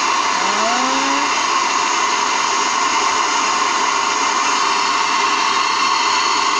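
Loud, steady hiss of FM radio static from a portable flashlight charging speaker switched into radio mode and not yet tuned to a station.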